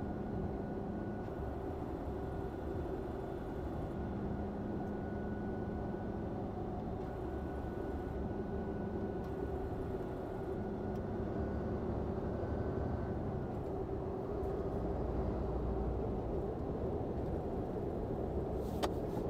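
Hino Profia heavy truck's diesel engine and road noise inside the cab while driving, a steady hum throughout, with a single click near the end.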